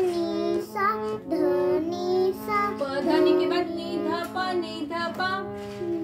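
A child singing a sargam exercise, stepping from note to note, over the steady held reed notes of a harmonium.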